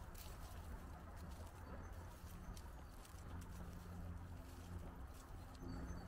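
Footsteps on a path at walking pace, soft crunches about once a second, over a low steady rumble, with a few faint high bird chirps.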